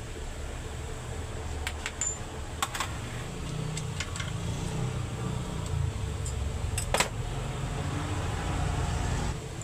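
A steady low hum with a scattering of sharp light clicks and clinks over it.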